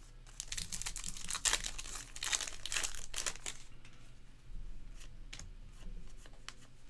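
Trading card pack wrapper being torn open and crinkled by hand, densest in the first few seconds, then lighter crackles and clicks as the cards are handled.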